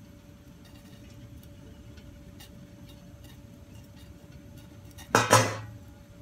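Steady hiss of lit gas burners under a faint steady hum, with a few faint light clicks. About five seconds in, a loud sharp clatter of kitchen crockery being set down, ringing briefly.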